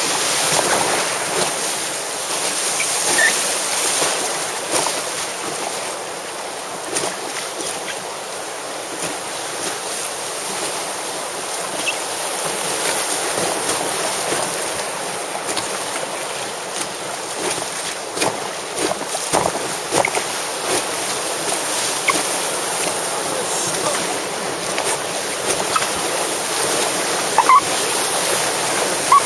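River rapid rushing steadily, with scattered short splashes throughout.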